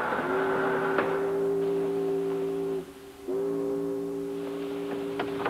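Train horn sounding two long, steady blasts, a chord of several notes. The first lasts about two and a half seconds and the second starts about half a second later. A few light clicks come near the end.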